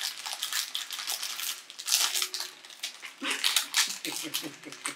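Crinkly plastic snack wrapper being torn and pulled open by hand, a rapid crackling. From about three seconds in, a short run of high, pitched yips sounds over it.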